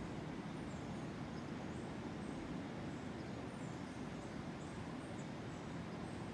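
Coastal jungle ambience: a steady low rumble with faint, short, high chirps repeating about twice a second.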